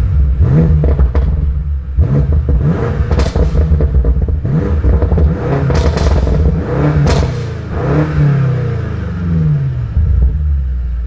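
2019 BMW M5 Competition's twin-turbo 4.4-litre V8 revved in a string of short blips through its Sport Plus exhaust with the valves open, with sharp pops and crackles between the revs. A longer rev near the end falls away.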